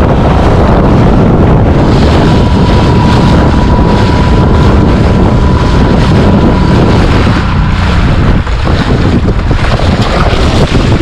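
Loud wind buffeting the microphone and water splashing as a Solo Skiff runs through choppy sea, with a faint steady whine for a few seconds in the middle.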